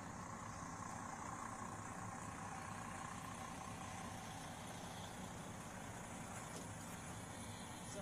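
Fire truck engine idling steadily, with outdoor background noise, picked up by a police body camera's microphone.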